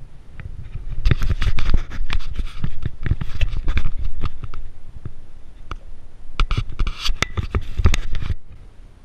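Rapid, irregular scraping, rubbing and knocking very close to the microphone, from about a second in until just past eight seconds: handling noise as an arm and clothing brush against the body-worn camera.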